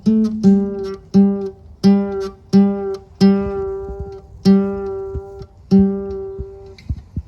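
Music: an acoustic guitar picking single notes that ring out, about one every two-thirds of a second.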